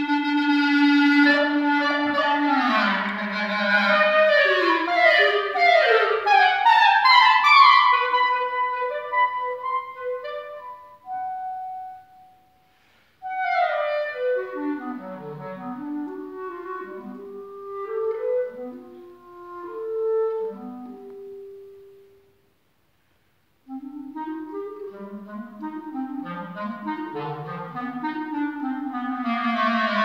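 Live performance of an octet for four clarinets and string quartet, the clarinets most prominent, playing busy, overlapping melodic lines that rise and fall. The music breaks off twice for about a second, once near the middle and once about three-quarters through, then resumes in short phrases.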